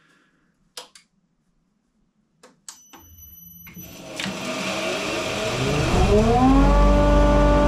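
A few light clicks and knocks, then the belt grinder's electric motor starts about three seconds in and spins up, its whine rising in pitch and growing louder before settling into a steady running tone near the end.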